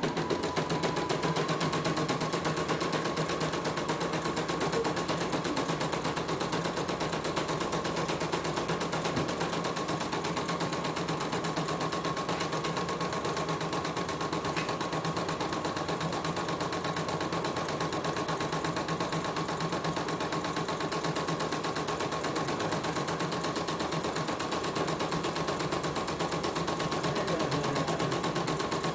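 CNY portable computerised embroidery machine stitching a design at speed: a fast, even run of needle strokes over a steady motor whine. It runs smoothly, with the upper thread no longer breaking after repair.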